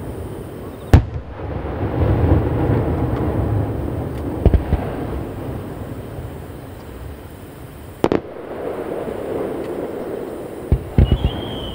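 Aerial firework shells bursting overhead: the loudest bang about a second in, more bangs around four and a half and eight seconds, and a quick cluster near the end, with a rumble of echoes off the surrounding mountains filling the gaps. A falling whistle from a whistling shell starts just before the end.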